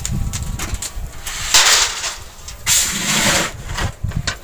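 Chickpeas being stirred through hot sand in a large iron roasting pan: two long rasping swishes about a second apart, over scattered clicks and a low rumble from the furnace.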